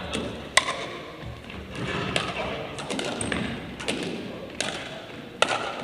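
Pickleball paddles striking the hard plastic ball during a rally in a gym, a series of sharp pocks; the loudest comes about half a second in and another strong one near the end.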